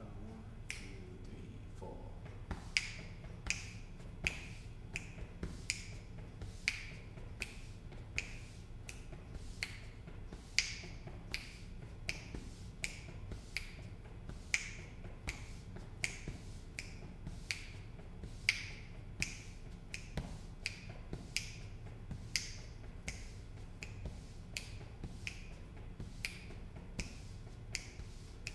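Finger snaps keeping a steady bossa nova groove with a drummer's brush-pattern feel. The loudest snaps fall about every two seconds, with lighter ones between.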